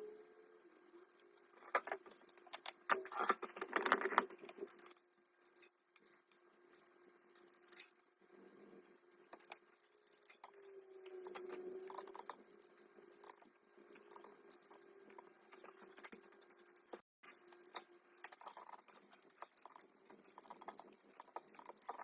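Metal hand tools and parts clinking and clattering in irregular bursts, busiest a few seconds in, over a faint steady hum.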